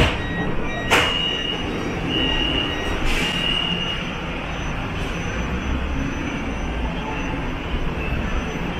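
A Siemens Inspiro metro train running, heard from inside the car as a steady rumble. Two sharp clicks come in the first second, and a brief high squeal follows between about one and three and a half seconds in.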